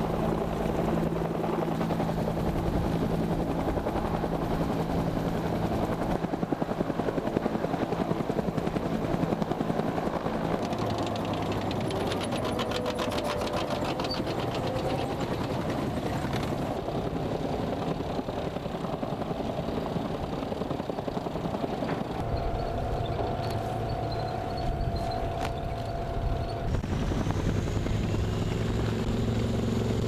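Cobra attack helicopters running and hovering, with their rotor beat, over the engine noise of armoured vehicles. The mix changes abruptly every few seconds, and there is a fast rhythmic beating for a few seconds near the middle.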